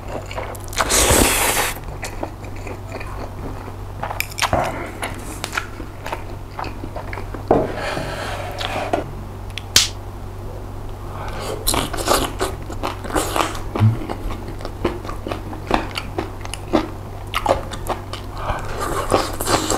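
Close-miked eating of spicy jjolmyeon noodles and grilled pork belly rolls: a loud noodle slurp about a second in, then chewing with many short mouth clicks and smacks through the rest.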